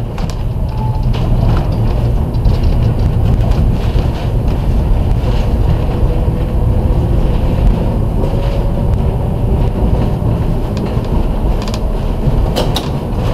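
Restored historic electric streetcar, Car 23, running along its track: a steady loud rumble of wheels on rails and running gear. A faint thin whine comes and goes through the middle, and a few sharp clicks sound near the end.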